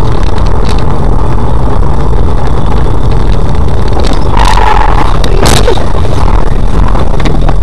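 Very loud, distorted vehicle noise, as from a dash-cam-style recording, with two sharp bangs a little over a second apart about halfway through.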